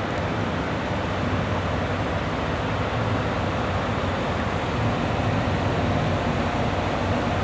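Steady low hum and rumble from a passenger train standing at a station with its onboard machinery running.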